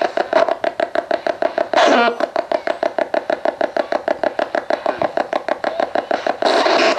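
Ghost box (spirit box) radio sweeping through the AM band: a fast, even chop of static and station fragments, about six a second, with a louder snatch of station sound about two seconds in and again near the end.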